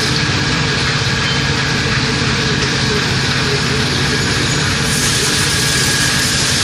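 Gear shaping machine running: a steady, unbroken mechanical noise with a low hum and a faint high tone.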